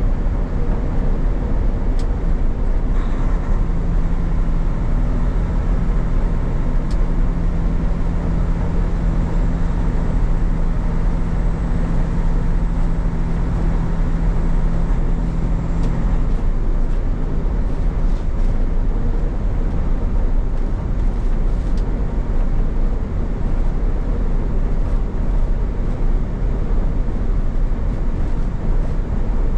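Semi truck cruising at highway speed on a wet, snowy road, heard from inside the cab: steady engine and road noise. A low steady hum joins in about four seconds in and drops away about sixteen seconds in.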